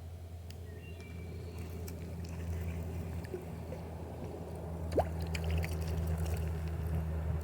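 Small water sounds, dripping and light splashing, with scattered clicks and one sharper click about five seconds in, over a steady low hum.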